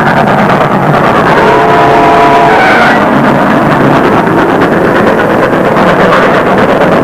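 Car engine running hard at speed, a loud steady rush of motor and road noise, with a brief steady higher tone about two seconds in.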